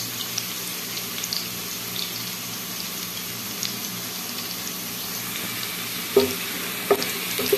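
Sliced onions and garlic sizzling steadily in hot oil in a pan, with small scattered crackles, as they are stirred with a wooden spatula.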